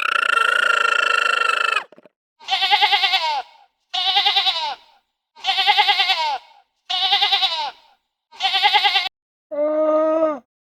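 A steady held tone for the first two seconds. It gives way to five quavering livestock bleats, about a second each, with short gaps between them. Near the end a lower, deeper animal call begins.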